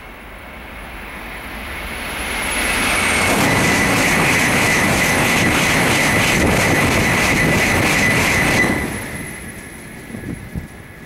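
Shinkansen bullet train passing at high speed: a rushing noise that swells over a few seconds into a loud steady rush with a high whine, then cuts off suddenly about nine seconds in as the train clears and fades away.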